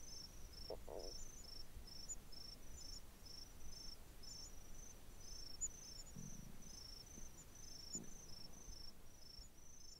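Insects chirping: short, high chirps repeating steadily, about two or three a second, over a faint low rumble.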